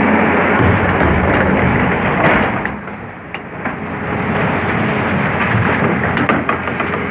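Hydraulic excavator's diesel engine running while crushed stone pours and rattles out of an open railway wagon, with scattered stone knocks. The noise drops briefly about three seconds in, then builds again.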